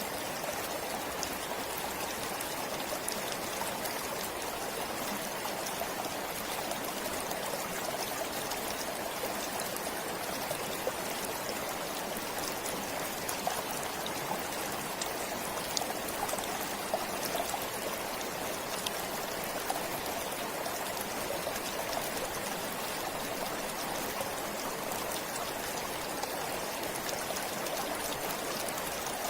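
Stream water flowing steadily, a constant even rush with faint scattered droplet ticks.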